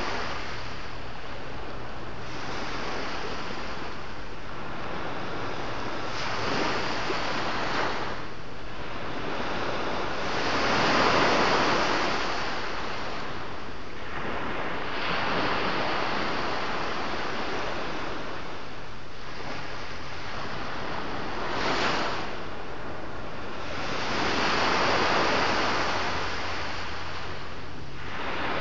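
Sea waves breaking and washing ashore in a steady surf, each wave swelling up and falling away every few seconds, with a light rush of wind on the microphone.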